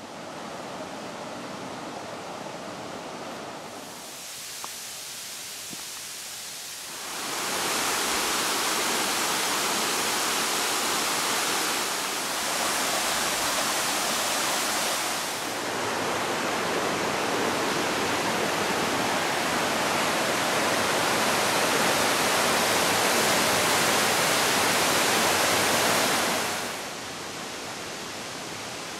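Flowing water with no voices: a softer river flow for the first several seconds, then about seven seconds in a much louder, steady rush of a small waterfall splashing into a rocky pool, which drops back to a softer flow near the end.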